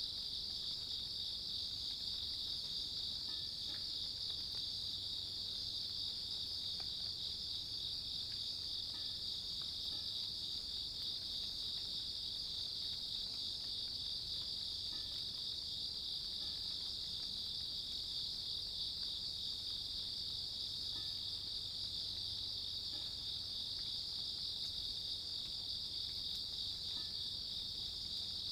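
Chorus of grass insects trilling, a steady high-pitched sound that never lets up.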